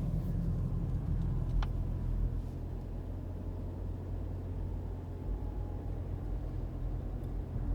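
Steady low rumble of a car driving along a road, road and engine noise heard from inside the cabin.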